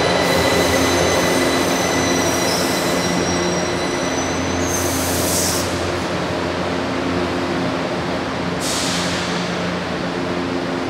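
J-series metro train braking to a stop at the platform: a steady electric whine and a high squeal that slides slightly down in pitch as it slows, with running rumble underneath. A hiss of air comes about five seconds in as the train halts, and another near the end as the doors open.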